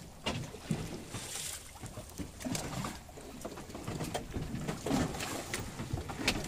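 Scattered knocks and clicks aboard a small fishing boat, with a brief hiss about a second in.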